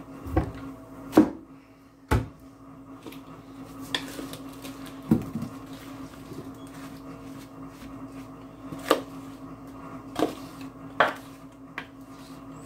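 Sugared apple slices tumbling from a plastic mixing bowl into a Lodge cast iron pie pan, with about eight scattered knocks and scrapes of the bowl and a wooden spatula against the pan. A steady low hum runs underneath.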